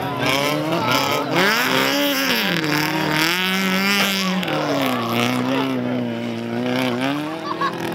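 Racing car engine revving hard, its pitch climbing and dropping several times.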